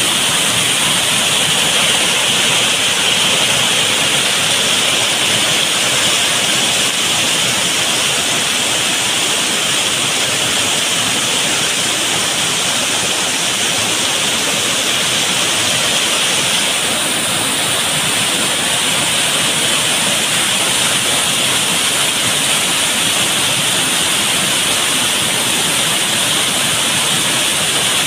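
Waterfall cascading over rocks: a loud, steady rush of water.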